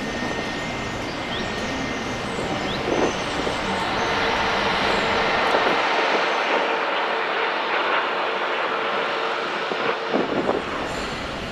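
Jet aircraft engine noise: a steady roar with a faint steady whine running through it. The deep part of the sound drops away for about four seconds in the middle and comes back near the end.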